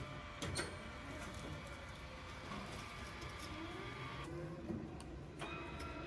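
Faint whir of the small electric actuator on a remote-controlled flail mower as it moves the front feed-inlet flap, with a couple of clicks about half a second in.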